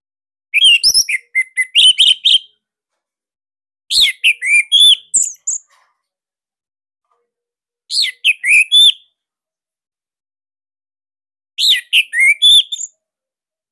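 Orange-headed thrush singing: four short phrases of quick, varied high notes, one about every four seconds, with silence between them.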